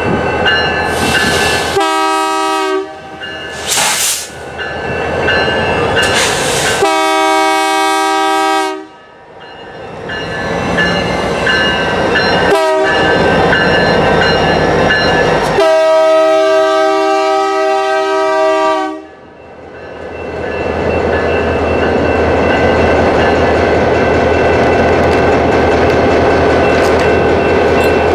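Diesel locomotive horn sounding three blasts, a short one, a longer one, then a long one of about three seconds, over the running of passing BNSF EMD GP-series locomotives. For the last several seconds the wheels and trucks rumble and clack by on the rail close at hand.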